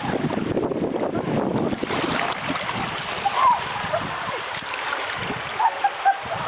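River water rushing and splashing around a raft, heaviest in the first two seconds and easing after, with a steady high-pitched hiss over it.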